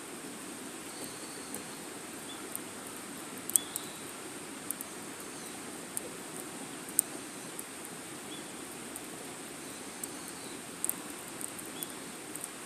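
Wood fire burning in a small fire pit: a steady low rush of flame with irregular sharp crackles and pops, the loudest about three and a half and seven seconds in.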